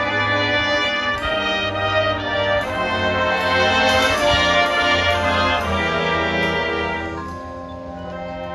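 Marching band brass playing full, sustained chords in a jazzy big-band style, the notes changing about once a second over percussion strokes; the music gets softer about seven seconds in.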